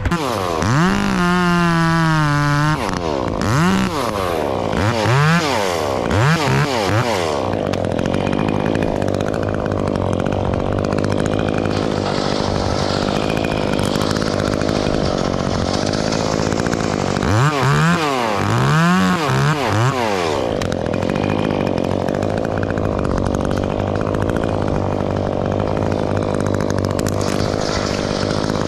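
Petrol chainsaw revving in quick blips, held high for a moment about a second in, then running steadily as it cuts through ash limbs, with another run of quick revs about two-thirds of the way through.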